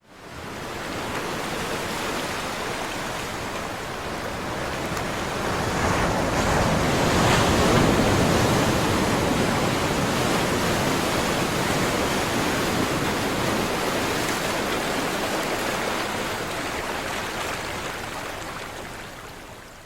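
Sea waves breaking as surf: a steady rushing wash that swells to a peak about seven or eight seconds in, then slowly eases off.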